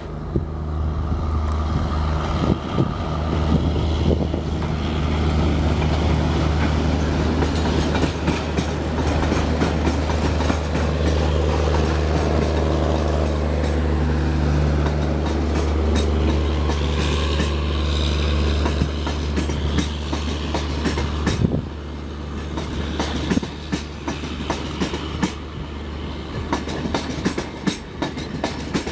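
Twin WDM3A diesel-electric locomotives with ALCO 251 V16 engines running past at close range: a deep steady engine drone over wheels clicking on the rail joints. About three-quarters of the way through the engine drone drops away, and the trailing coaches' wheels clatter over the joints.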